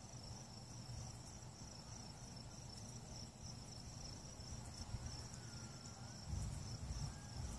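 Faint crickets chirping in a steady, high pulsing trill, with a low rumble on the microphone from about six seconds in.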